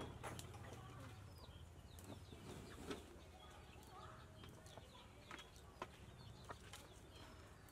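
Faint chirping and clucking of chickens and birds, with a few light clicks of a spoon against a metal cooking pot.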